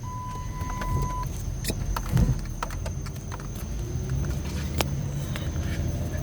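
Dodge Charger's engine running while driving, a steady low rumble inside the cabin, with its pitch rising slowly in the second half as it accelerates. A single steady electronic beep lasts about a second at the start, with scattered light clicks throughout.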